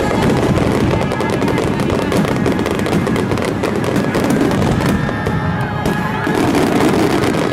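Starmine fireworks barrage: a rapid, dense string of bursts and crackling. Music set to the display plays underneath.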